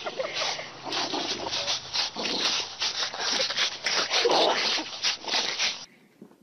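Two dogs play-fighting and scuffling, heard as a harsh, rasping, rubbing noise that stops abruptly about six seconds in.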